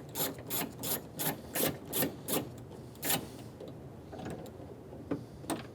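A ratchet with a 10 mm socket clicking evenly, about three clicks a second, as it backs out the door handle's rear bolt. The clicking stops about two and a half seconds in, followed by one sharper click and a few faint taps.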